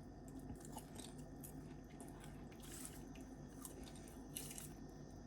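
Faint chewing of popcorn, with a few soft crunches.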